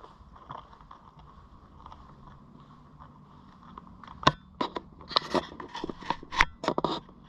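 Footsteps and scuffs on a hard floor. After a few seconds of faint background, a run of sharp, irregular steps and scrapes starts about four seconds in.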